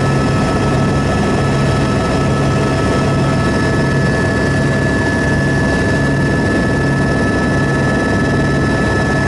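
Helicopter engine and rotor running steadily in flight: a continuous drone that pulses evenly low down, under a steady high whine.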